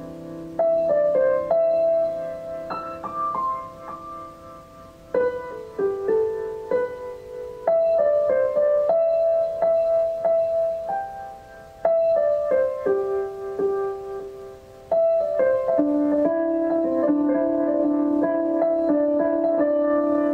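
Slow, gentle piano music: notes struck in short phrases and left to ring, each new phrase starting louder every few seconds.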